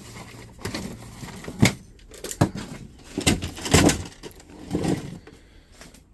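Items being handled and moved about: a series of knocks, bumps and scrapes, about five louder knocks between one and five seconds in.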